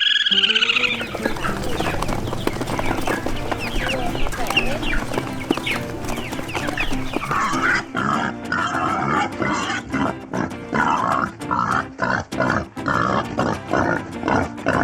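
Farm animal calls: a pitched call at the start, then many short high calls, then from about halfway on a run of repeated short grunting calls, with background music.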